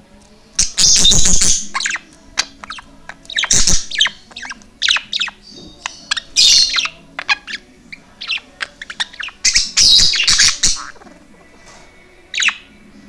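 Young budgerigar chattering and warbling, with a stream of short high chirps and several louder bursts of chatter about a second in, near four, six and a half, and ten seconds.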